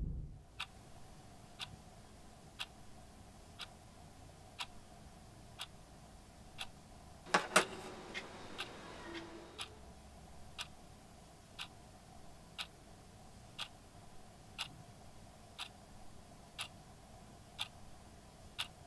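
A clock ticking faintly and steadily, about once a second, over a low room hum, with a louder pair of knocks about seven seconds in.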